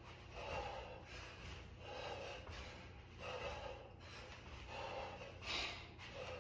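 A man breathing hard during jumping lunges, a forceful breath about once a second in time with the jumps.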